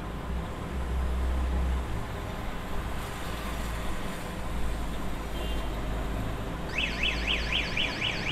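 Felt-tip marker squeaking on a whiteboard as a wavy line is drawn: a quick run of high up-and-down squeaks, about four a second, starting near the end. Under it, a steady low rumble throughout.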